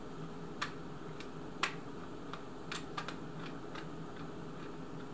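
Scattered light clicks and ticks of small gun parts being handled and fitted into a polymer rifle stock, the sharpest about a second and a half in, over a steady low hum.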